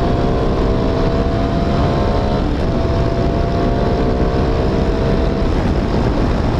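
CFMOTO 300SS single-cylinder engine pulling hard under acceleration, its pitch rising steadily, with a brief dip at an upshift about two and a half seconds in. Heavy wind rumble on the helmet-camera microphone runs underneath.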